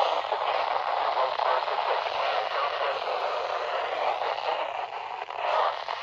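Weather radio speaker playing a weak broadcast: steady static hiss with a faint voice coming through it.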